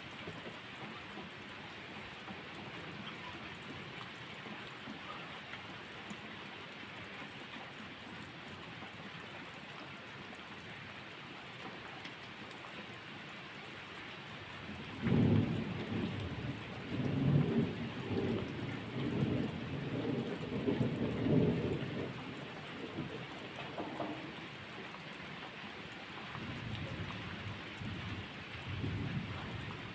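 Steady rain hiss, with a rolling rumble of thunder that swells in about halfway through and lasts some seven seconds, then a fainter rumble near the end.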